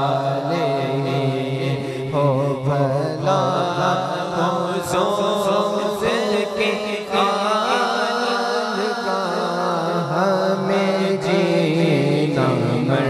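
A man reciting a naat, singing a slow, ornamented devotional melody into a microphone over a steady low drone that drops out for a few seconds midway.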